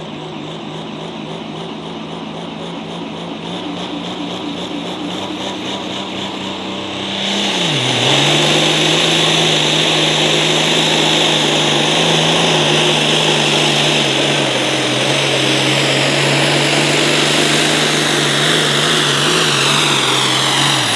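Diesel pulling tractor engine held at high revs. About seven seconds in it suddenly gets much louder and its pitch drops as it takes the load of the sled. It then runs hard and steady under load.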